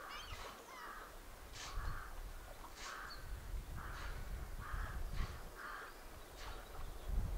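Crows cawing, repeated calls about once a second, with a low rumble underneath that builds from about two seconds in.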